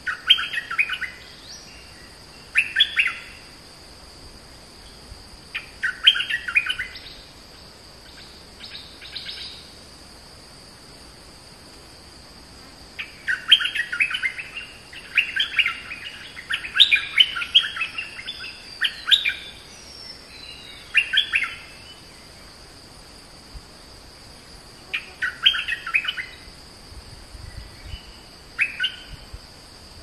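Bulbul calling in short bursts of fast, chattering notes every few seconds, with a longer run of calls through the middle. A steady high insect drone goes on underneath.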